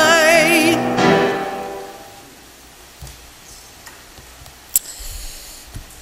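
The final sung note of a hymn, held with vibrato over accompaniment, ending about a second in. A last chord rings out and fades away within another second, leaving quiet room tone with a sharp click near the end.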